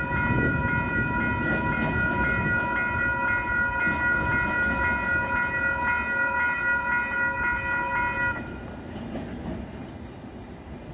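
Level crossing warning bell ringing steadily over the low rumble of coal wagons rolling past. The bell stops abruptly about eight seconds in, once the train has cleared the crossing, and the rumble fades.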